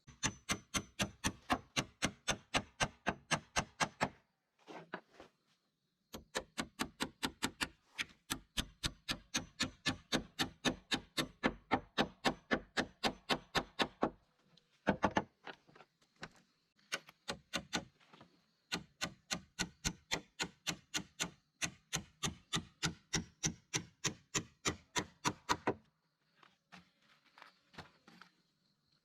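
Rapid, evenly spaced strikes of a hand tool on wood, about three a second, in long runs broken by short pauses.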